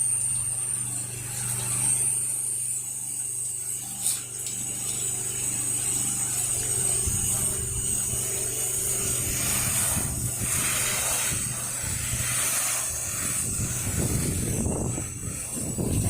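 Gas pressure washer's Kohler Command Pro engine running steadily, with a high whine over it. From about seven seconds in, a rushing spray noise joins.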